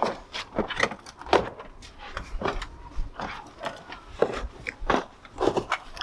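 Scattered knocks, clicks and rustling at irregular spacing, from a person handling things and stepping about in a van's side doorway.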